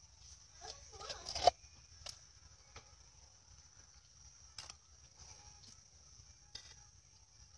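Metal profile template and mold on the spindle of a hand-turned cement pot-forming jig: a rustling scrape about a second in ends in a sharp knock, then scattered light clicks and scrapes as the template is turned through the wet cement mix. A faint steady high-pitched whine lies underneath.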